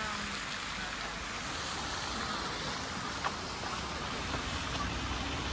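Steady outdoor background noise, an even hiss without a clear source, with a faint click about three seconds in.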